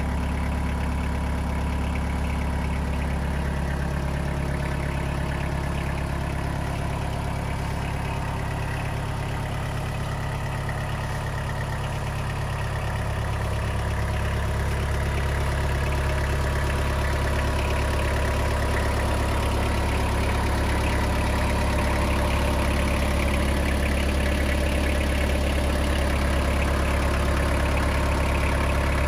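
Mitsubishi MT245 compact tractor's four-cylinder diesel engine idling steadily, a little louder from about halfway in.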